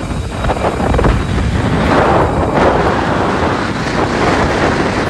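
Wind buffeting the microphone of a phone filming from a moving car: a loud, uneven rushing noise.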